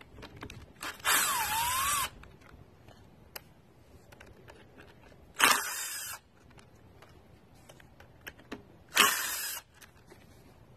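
Electric impact wrench in three short bursts, backing out the Allen-head bolts of a locking hub on a Dana 44 front axle. The first burst, about a second long, has a motor pitch that dips and climbs back; the later two, about halfway through and near the end, are shorter.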